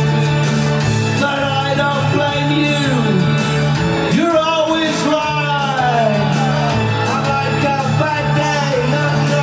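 Live rock band playing, with a sung vocal over held bass notes.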